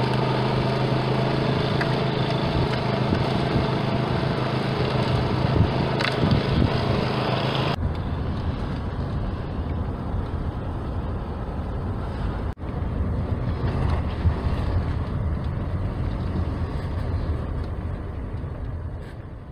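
Walk-behind snowblower engine running steadily at a constant pitch for about the first eight seconds. Then a cut to the steady engine and road noise of a car driving, heard from inside the car.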